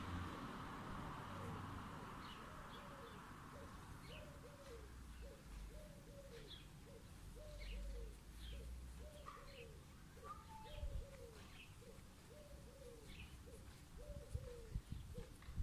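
Garden birds calling: a continuous run of low, arching cooing notes, about two a second, with scattered short high chirps over them.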